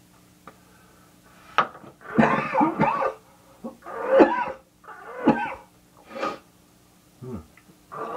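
A man coughing and clearing his throat in a run of separate bursts, the longest and loudest about two seconds in, then shorter ones spaced about a second apart.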